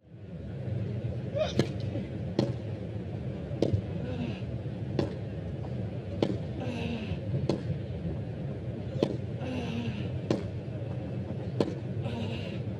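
Tennis rally on a grass court: the ball cracks off the racket strings about once every second and a quarter as the players trade groundstrokes. Short grunts come on some of the shots, over a low steady crowd hum.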